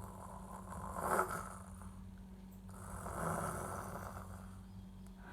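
A person imitating a dog snoring: two long, breathy snores, the first peaking about a second in, the second from about three to four and a half seconds in.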